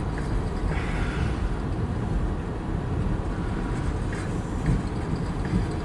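Freight train cars rolling steadily past a grade crossing: a continuous low rumble of wheels on rail, heard from inside a car.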